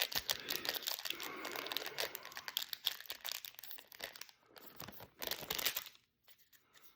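Trading card pack wrapper crinkling as the cards are pulled out of the opened pack, a dense run of small crackles that stops about six seconds in.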